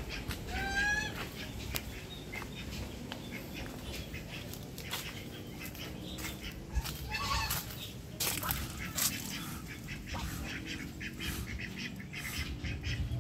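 Domestic waterfowl calling twice, a short two-note call about half a second in and another about seven seconds in, over scattered clicks and rustling, with louder rustles around eight and nine seconds.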